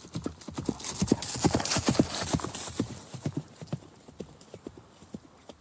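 Horse's hooves clip-clopping in a quick run of hoofbeats that grows louder, then fades away as the horse moves off.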